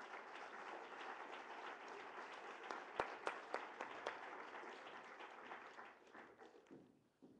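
Audience applauding, with a few sharper individual claps in the middle, dying away about six seconds in.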